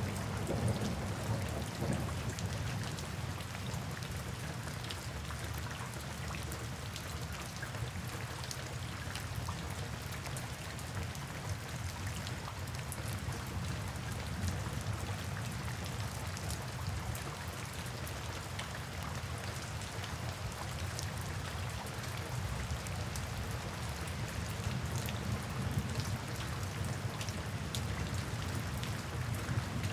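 Steady summer rain, with many individual drops ticking close by. Underneath is a low rumble that is heavier in the first couple of seconds and builds again near the end.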